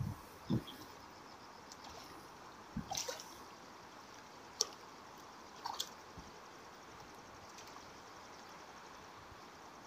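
A few small splashes and clicks from a hooked fish thrashing at the water's surface close to the bank, over the faint steady flow of a river.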